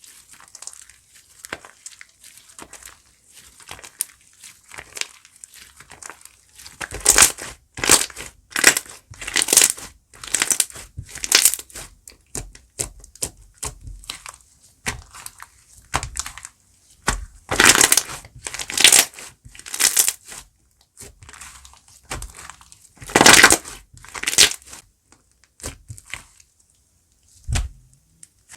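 Slime being squeezed and pressed by hand: an irregular run of short, noisy squishes and crunches, coming in loud clusters with quieter handling in between.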